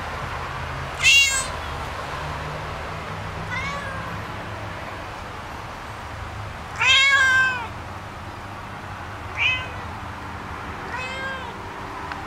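A cat meowing repeatedly to be let in: five meows a couple of seconds apart, each rising then falling in pitch, the one about seven seconds in the longest and loudest.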